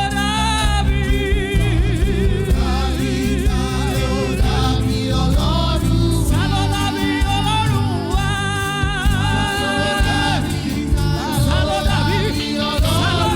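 Gospel music: singing with strong vibrato over a loud, bass-heavy band accompaniment.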